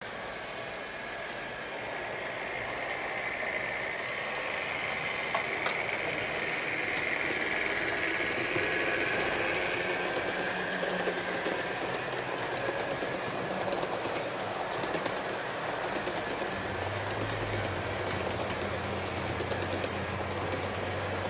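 HO-scale model train running: the Roco DB class 110 locomotive's small electric motor whines while the wheels of the coaches click rapidly over the track. A steady low hum joins near the end.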